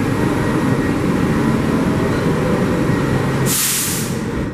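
R62A subway train standing at the platform with its doors open, its equipment running with a steady rumble. About three and a half seconds in comes a short sharp hiss of released air, typical of the train's air brakes.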